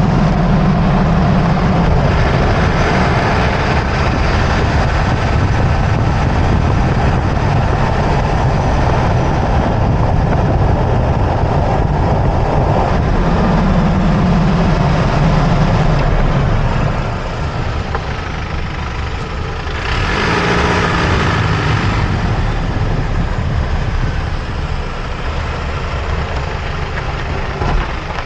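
Running noise of a 2024 Toyota Tacoma heard from under the front end on the frame while driving: its turbocharged four-cylinder engine, with tyre and suspension noise, loud and steady. It eases off a little past the middle and surges briefly louder about 20 seconds in.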